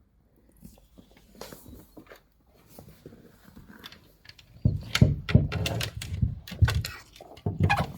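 Faint knocks and scrapes, then from about halfway a run of loud, close thumps and knocks on hard surfaces, two or three a second.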